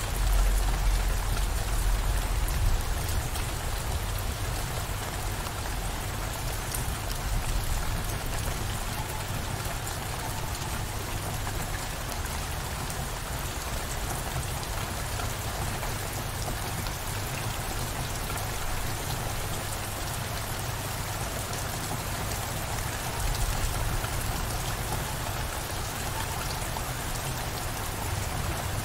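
Steady downpour of rain, with a low distant thunder rumble dying away in the first few seconds and a fainter swell of rumble near the end.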